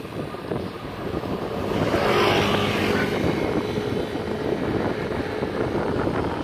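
Steady drone of a moving vehicle with wind rushing on the microphone. The noise swells into a louder rush about two seconds in.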